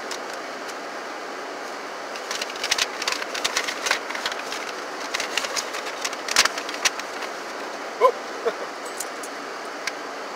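Paper crinkling and rustling as a folded printed sheet is opened out, a run of crackles from about two to seven seconds in, over a steady hiss inside the vehicle. A short hum of a voice comes about eight seconds in.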